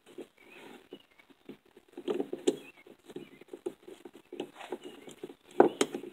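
A chainsaw's plastic recoil starter housing and its wound-up recoil spring being handled and worked into place on a wooden bench: irregular scraping, rubbing and light clicks, with a sharp click a little before the end.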